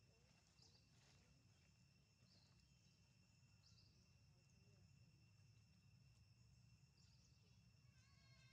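Near silence: a faint, steady, high insect drone, with short high chirps now and then and a brief high call near the end.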